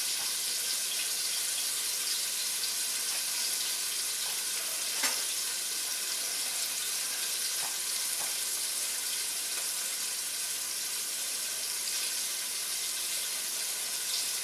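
Flour-dredged chicken breasts sizzling steadily as they brown in olive oil in a stainless steel pan, with an occasional pop of spitting oil, the sharpest about five seconds in.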